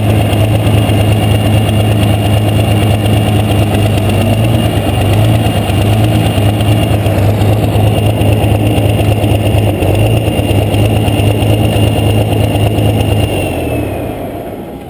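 International 1066 tractor's engine running at a steady low idle, heard from the driver's seat, with a thin steady high whine over it. Near the end the sound dies away and the whine drops in pitch.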